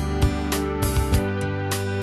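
Instrumental background music: held notes with new notes struck every few tenths of a second.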